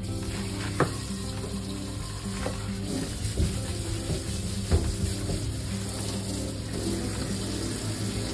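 Cooking oil pouring in a thin stream from a plastic bottle onto chopped garlic chives in a steel bowl: a steady soft hiss, under background music, with a few light clicks.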